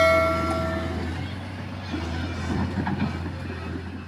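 A heavy engine humming steadily, with a metallic ringing note fading out in the first second.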